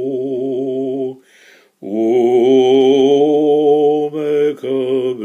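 A man's voice chanting a Hebrew prayer, drawing the words out in long, wavering held notes, with a brief break about a second in.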